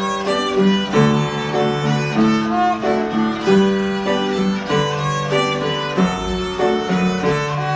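Violin playing a lilting Irish melody of held and moving notes, over a lower-pitched accompaniment.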